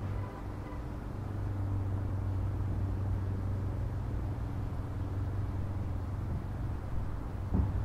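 Steady low engine hum, with one short knock near the end.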